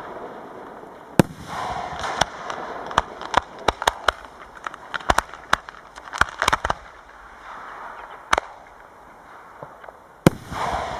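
Aerial fireworks shells bursting in a professional display: a series of sharp bangs, with a rapid cluster of reports in the middle and a loud bang near the end.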